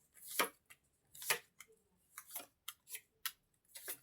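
Tarot cards being handled: a string of short, irregular clicks and rustles as the cards are slid and laid down.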